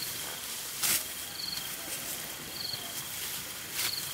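Insects calling: a short high chirp repeats about once a second over a steady high thin drone and hiss. Two brief rustles or swishes break in, one about a second in and one near the end.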